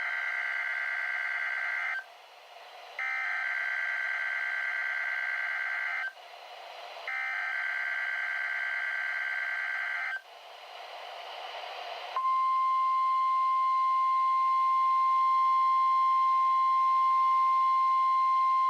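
NOAA Weather Radio Emergency Alert System test: three bursts of SAME digital header data tones, each about three seconds long with about a second of radio hiss between them, then about twelve seconds in the steady single-pitch NOAA warning alarm tone comes on and holds.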